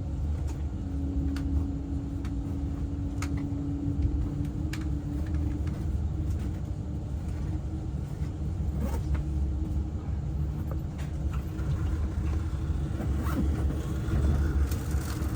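Cabin noise of an ICE high-speed train in motion: a steady low rumble with a hum that fades out about five seconds in, and a few faint clicks and knocks.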